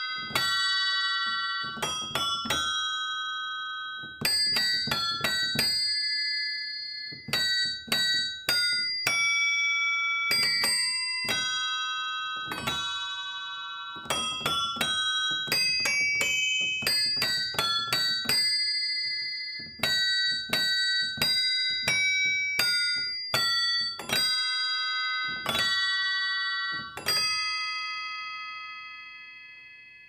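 Hammers of a homemade keyboard-operated bell instrument (a celesta-like Flexiphone) striking its carriage of brass bells: a tune played in single notes and chords, bright ringing tones rich in high overtones. The last chord is left to ring and fades away near the end.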